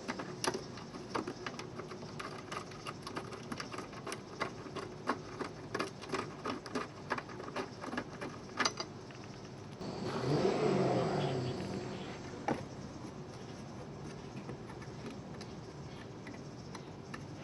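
Hand tools clicking irregularly, a few times a second, while working loose the mounting hardware of a stubborn old side step under a pickup. About ten seconds in, a louder rushing noise rises and fades over about two seconds.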